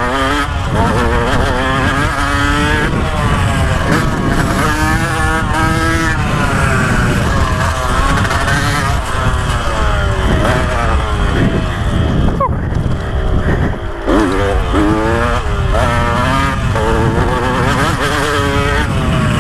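KTM 125 SX two-stroke dirt bike engine revving hard, its pitch climbing and falling over and over as the rider works the throttle and gears, with wind buffeting the microphone. About twelve and a half seconds in the revs cut out sharply for a moment, then pick up again.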